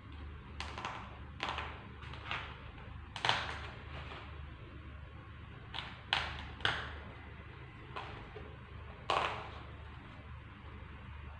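Short scratchy rustles of thin wire and LED leads being pushed into and rubbed against a white foam sheet, about eight of them at uneven intervals, over a low steady hum.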